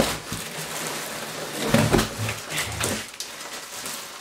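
Cardboard box and plastic wrapping rustling as a car wheel is lifted out of its shipping box, with a few knocks and dull thuds, the loudest about two seconds in.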